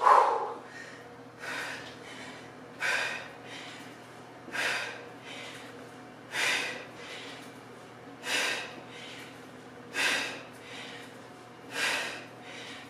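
A woman's sharp, forceful exhales, one with each kettlebell swing, coming regularly about every two seconds, seven or eight in all, over a faint steady hum.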